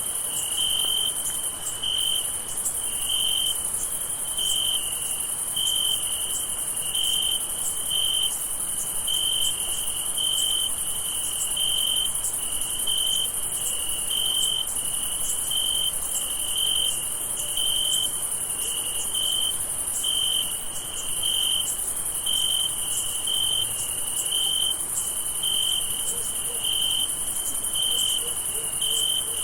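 Crickets on a summer night: one chirps steadily, about once every three-quarters of a second, over a continuous high-pitched trilling of other insects.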